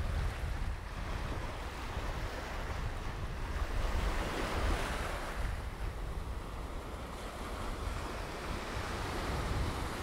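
Small surf breaking and washing up the sand and over low rocks at the water's edge, with a wash swelling about four seconds in. Wind buffets the microphone with a low rumble throughout.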